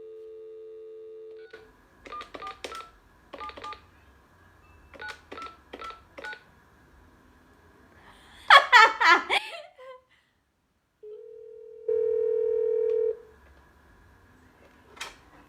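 Phone on speakerphone: a steady line tone cuts off, then a string of short keypad dialing beeps as a number is dialled. A brief loud voice comes about halfway through, and near the end a steady ringback tone sounds as the call rings.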